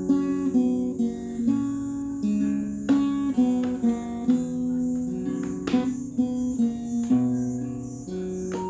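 Cutaway acoustic guitar playing a song intro alone, picked chords changing every half second or so, with several sharp strummed accents.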